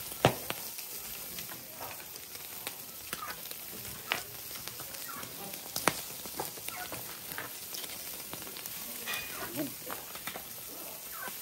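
Pork sizzling on a wire grill over an open wood fire, just turned over, with a steady hiss and a few sharp crackles and pops; the loudest comes just after the start.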